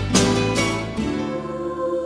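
Music with a plucked string instrument like a guitar: two struck chords near the start, then the notes ring on and fade.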